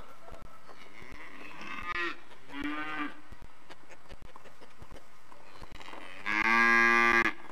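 Farm animal calls: two short calls about two and three seconds in, then a louder call about a second long near the end.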